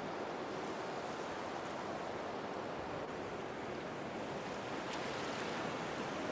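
A steady, even rushing noise with no tone or rhythm.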